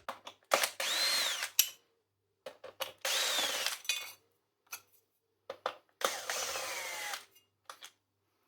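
A cordless electric screwdriver runs three times, about a second each, its motor whine rising and falling, as it undoes screws. Short clicks and knocks of parts being handled come between the runs.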